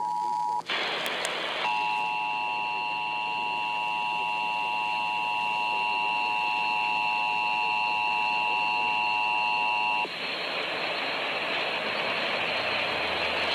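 Emergency Alert System attention signal, the steady two-tone alarm of about 853 and 960 Hz, received over the radio for a Required Monthly Test. One tone cuts off about half a second in, there is a second of radio hiss, then the two-tone alarm sounds steadily for about eight seconds and stops abruptly, leaving radio static.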